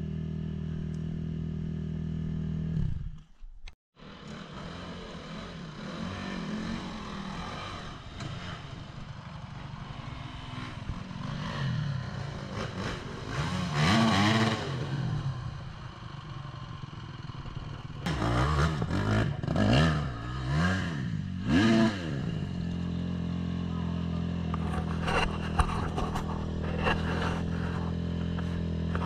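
Dirt bike engine idling steadily, then after a short break dirt bikes revving up and down repeatedly while climbing a steep, rocky slope. Near the end a steady idle returns, with sharp clattering knocks.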